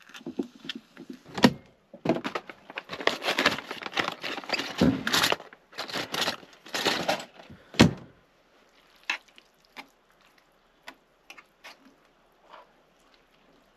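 Crinkling and rustling of a plastic food packet being handled, with a couple of sharp knocks, then faint scattered clicks of a utensil stirring ramen noodles in an electric hot pot.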